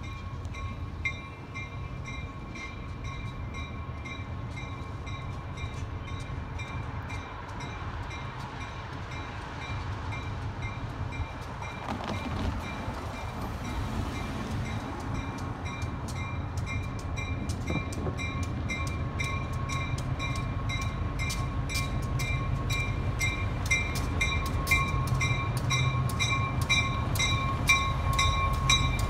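Railroad crossing bell ringing in steady, evenly repeated strokes, over the low rumble of a diesel locomotive that grows louder as it rolls up to the crossing. A car passes about halfway through.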